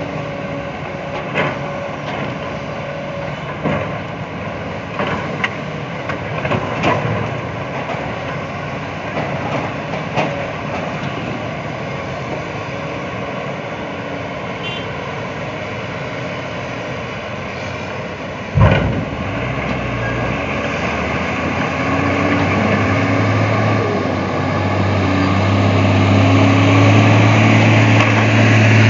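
Diesel engines of a grapple excavator and a logging truck running, with scattered sharp knocks of logs being handled. A heavy thump comes about two-thirds through. Then a deep engine note grows louder toward the end as the truck pulls away.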